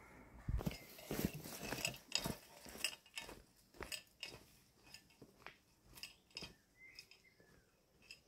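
Footsteps crunching and snapping on dry twigs and forest litter. They are loud and close together for the first few seconds, then settle to about two steps a second and grow fainter as the walker moves away.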